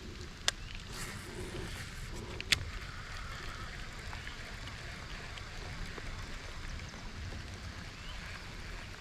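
Steady hiss of light rain falling on the lake and kayak, with two sharp clicks, one about half a second in and another about two and a half seconds in.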